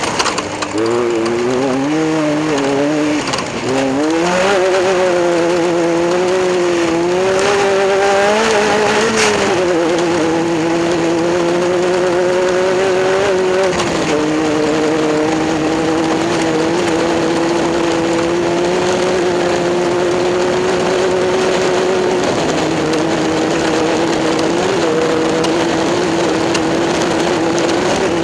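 Racing engine running at high revs, its pitch rising and falling over the first ten seconds, then holding fairly steady with a few small dips.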